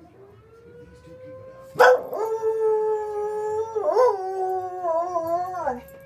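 Soft-coated wheaten terrier howling at a fire whistle: one long howl starting about two seconds in, wavering about halfway and dropping in pitch as it ends. Under it the fire whistle sounds a steady tone that rises briefly at the start and then holds.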